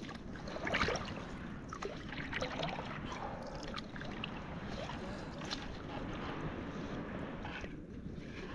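A small fishing boat being moved through the water: water splashing, with scattered light knocks.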